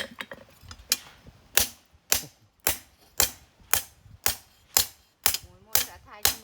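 Hand hammer striking steel on an anvil in a steady rhythm, about two blows a second, while forging a knife blade.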